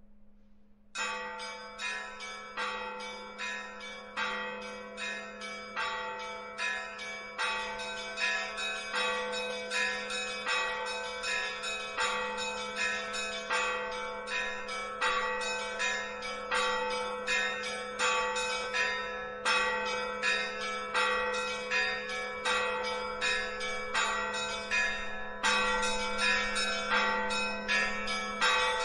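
Church bells ringing in a steady run of strokes, about two a second, starting about a second in.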